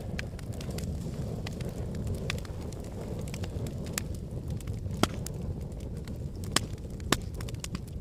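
Wood fire burning: a steady low rush of flames with scattered crackles and sharp pops. The loudest pops come about five, six and a half, and seven seconds in.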